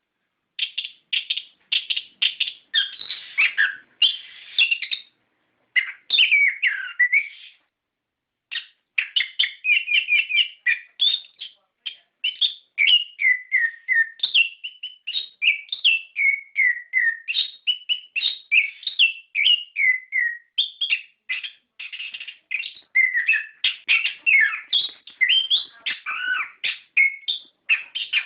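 Orange-headed thrush (anis kembang) singing a long, nearly unbroken run of rapid, varied whistled phrases, with one pause of about a second roughly a third of the way through.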